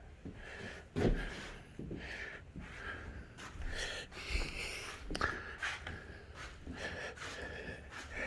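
Footsteps and a few irregular knocks on a bare floor, with a faint steady high whine underneath.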